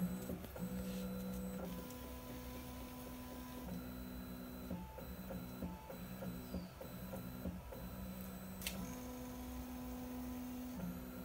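Stepper motors of a Voron 2.4 CoreXY 3D printer running as the toolhead travels over the bed: steady whining tones that jump to a new pitch with each move. One sharp click comes about nine seconds in.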